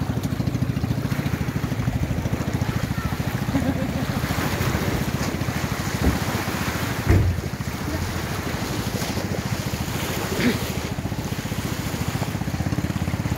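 Outrigger bangka boat's engine chugging steadily with a fast, even beat, over the wash of small waves on shore rocks. A few brief thumps stand out about six, seven and ten seconds in.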